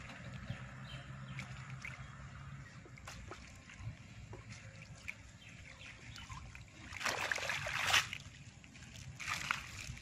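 River water sloshing and trickling, with small knocks and a louder splash lasting about a second near the end; a low steady hum sits underneath at the start.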